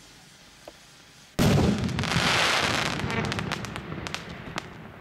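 Firework rocket bursting overhead with a sudden loud bang about a second and a half in. Dense crackling follows and thins out as it fades over the next few seconds.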